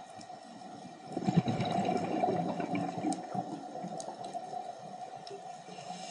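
Underwater bubbling and gurgling from a scuba diver's exhaled breath, swelling about a second in and easing off over the next few seconds, over a steady hum.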